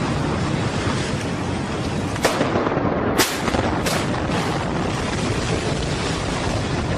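Building demolition blast: three sharp explosive cracks, about a second apart, a couple of seconds in, over a constant rumbling noise.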